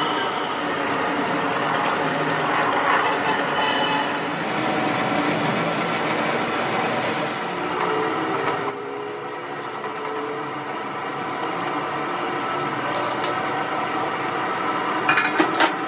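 Metal lathe running while a large twist drill in the tailstock bores into the end of a steel axle shaft, a steady machining noise with ringing tones from the spinning work. The sound shifts abruptly about halfway through, and a few sharp metallic clicks come near the end.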